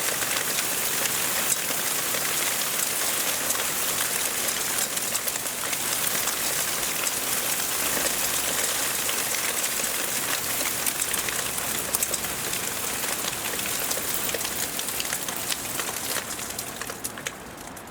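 Hail falling: a dense, steady patter of hailstones striking hard surfaces, with many small sharp ticks in a loud rushing hiss. It cuts off abruptly at the very end.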